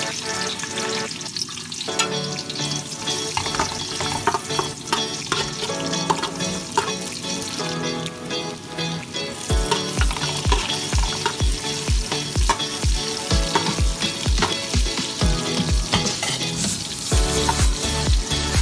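Ginger slices sizzling as they fry in oil in a stainless steel pot, stirred with a metal spoon.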